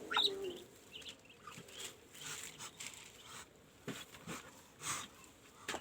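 Floor being swept by hand in a poultry pen: scattered light rustling and scraping strokes, with a few sharper strokes in the second half. A short rising peep, likely from a newly hatched duckling, sounds right at the start.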